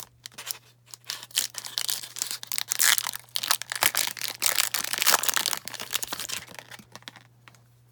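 A 2019 Topps Tribute trading card pack being torn open, its wrapper crinkling and crackling in a dense irregular run that is loudest in the middle. A steady low hum sits underneath.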